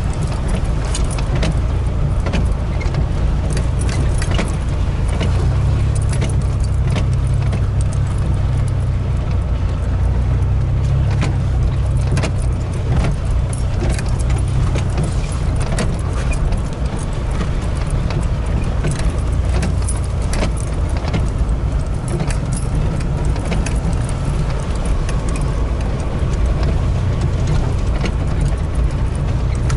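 Engine and tyres of a truck heard from inside the cab as it drives over a rough, muddy dirt track, a steady low rumble with frequent short clinks and rattles from the cab.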